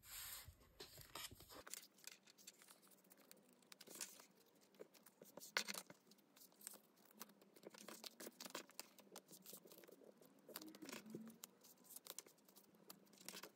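Faint rustling and small clicks of photocards being handled and slid into card sleeves, with a few sharper taps scattered through.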